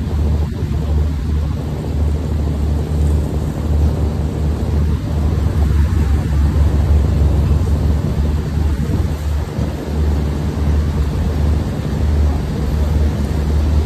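Steady low drone of running machinery with an even rushing hiss over it.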